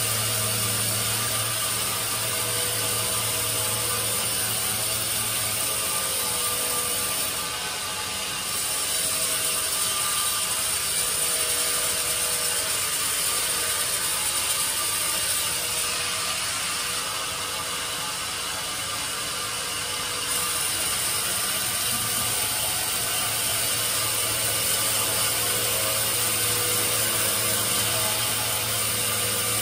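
Sawmill band saw running and cutting through a log, a steady mechanical whine and rasp over a low motor hum, easing slightly twice as the load changes.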